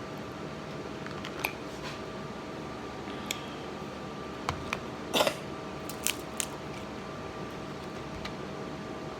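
Small scattered clicks and taps of food and utensils being handled while eating, with a brief louder clatter about five seconds in, over a steady hum.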